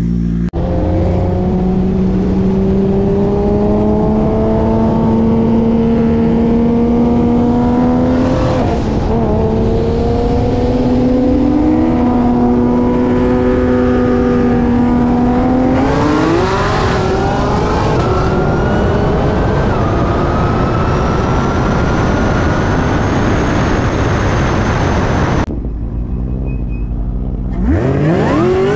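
A high-powered car engine at full throttle under hard acceleration, its pitch climbing steadily through each gear, with sharp drops at upshifts about 9 and 16 seconds in. Near the end the sound cuts and a fresh hard launch begins, its pitch rising quickly.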